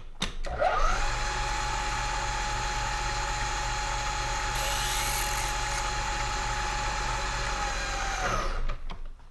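Milling machine spindle spinning up to speed, running steadily while a small drill bit bores a drive-screw hole through a brass ID tag into an aluminium block, then winding down near the end.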